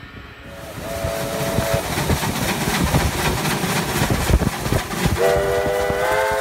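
Steam locomotive running past with a rhythmic exhaust chuff. It gives a brief whistle note about a second in, then a long chime whistle from about five seconds in, several tones at once that step slightly higher a moment later.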